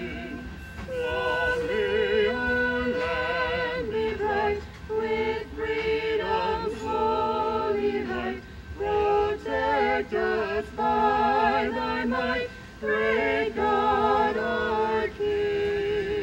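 A man and three women singing together without accompaniment, in sustained phrases with vibrato and short pauses between them.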